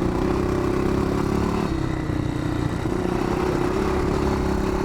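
1981 Yamaha XT500's single-cylinder four-stroke engine running under throttle while being ridden, the engine note dipping briefly about two seconds in and then picking up again.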